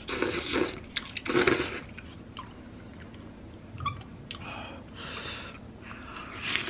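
A person slurping up forkfuls of pasta noodles in cream sauce, with two loud slurps in the first two seconds, then chewing with wet mouth clicks.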